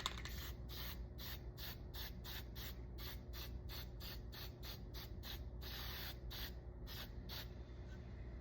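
Mohawk toner aerosol can spraying in short hissing bursts, about three a second, stopping about a second before the end.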